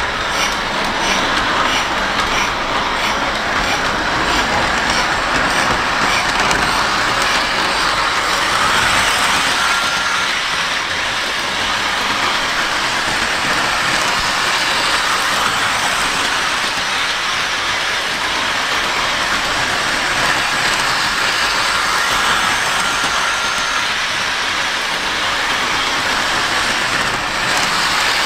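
Lionel O gauge Thomas the Tank Engine model locomotive pulling two coaches around plastic-roadbed FasTrack on a plywood table: a steady running rumble of motor and wheels on the rails. A light regular clicking is heard in the first few seconds.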